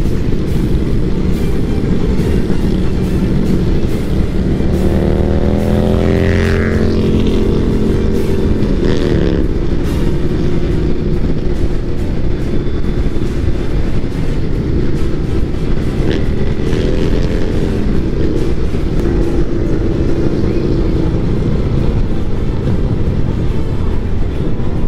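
A large group of motorcycles riding at freeway speed: a steady rush of wind and engine noise, with engines revving up, rising in pitch about five seconds in and falling away around nine seconds.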